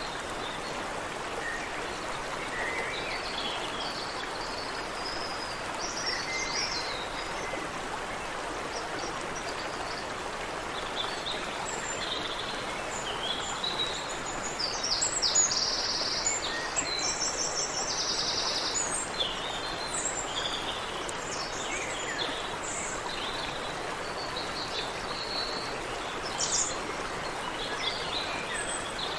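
A stream running steadily over rocks, with several songbirds calling and singing over it; a burst of rapid trilling notes about halfway through is the loudest moment.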